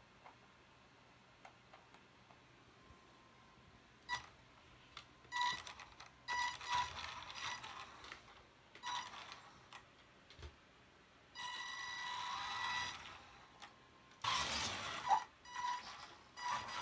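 Electric RC car's drive motor and gears whirring in short, irregular bursts of throttle, starting about four seconds in.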